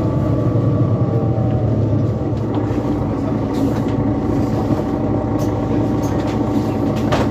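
Mercedes-Benz Citaro C2 city bus running between stops: steady diesel engine and drivetrain hum with faint whining tones above it, and one sharp click near the end.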